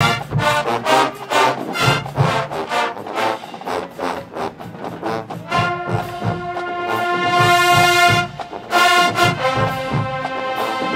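Marching band brass, sousaphones included, playing a stand tune. The first few seconds are short punchy stabs in a steady rhythm, then long held brass chords come in about five and a half seconds in and again near the end.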